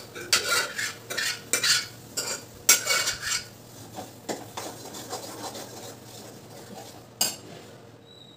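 Metal spoon scraping cooked dal out of a steel bowl into a steel kadai, several quick scrapes, then quieter stirring in the pan. A single sharp clack near the end.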